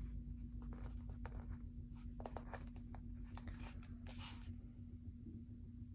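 Paper sticker book and stickers being handled: a few soft paper rustles and light clicks as pages are turned and a sticker is picked up, over a steady low hum.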